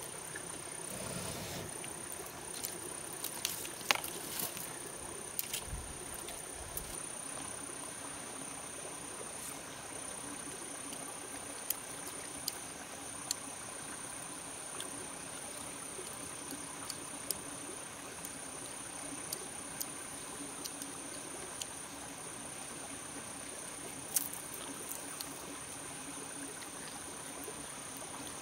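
A steady, high-pitched insect trill over a soft hiss, with scattered sharp clicks and crackles; the loudest clicks come about four seconds in and again near the end.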